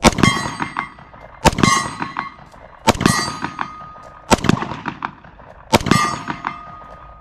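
Five shots from a Gen 5 Glock 29 10mm pistol, about one and a half seconds apart. Each is followed by the ringing clang of a steel target hit at 50 yards.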